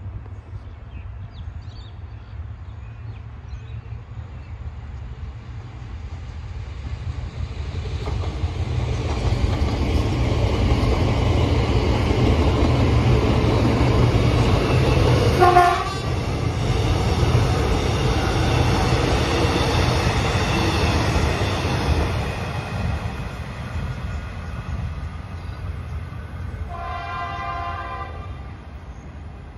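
Alstom X'Trapolis electric train passing at speed: rail and wheel noise builds, peaks as it goes by and fades away. A short horn blast sounds about halfway through as the train passes, and a second horn sounds near the end.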